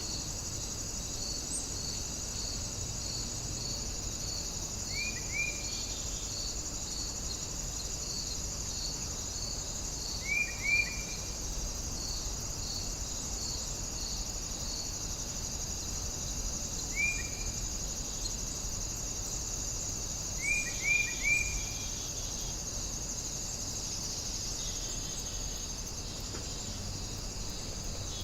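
Outdoor nature ambience of crickets and other insects trilling steadily, with one cricket's chirp pulsing about twice a second through the first half. A bird breaks in four times with short, quick downward chirps, singly or in runs of two or three.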